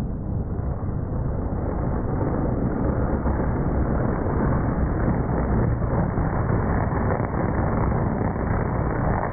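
ARCA stock car's V8 engine, growing louder over the first few seconds as the car comes down the front straightaway and passes.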